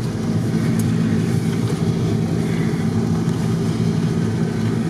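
Four-wheel-drive vehicle's engine running steadily at low revs, heard from inside the cab as it drives through deep snow.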